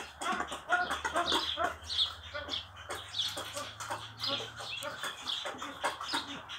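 Fowl clucking in short, quick calls, several a second, with a few sharp taps mixed in.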